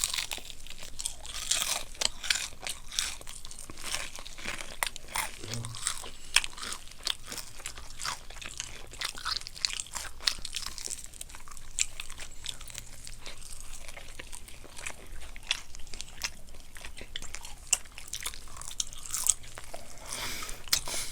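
Bites and chewing of Kyochon Honey Combo fried chicken, eaten plain without dipping sauce, with many sharp, irregular crunches throughout.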